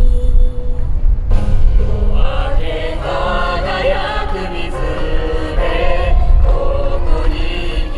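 Yosakoi dance music played loud over loudspeakers, with a heavy bass beat; about a second in, a choir-like sung passage enters over it.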